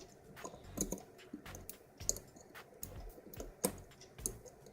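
Dimple pick working the pins inside a cheap dimple lock held under light tension: a string of small, irregular metallic clicks.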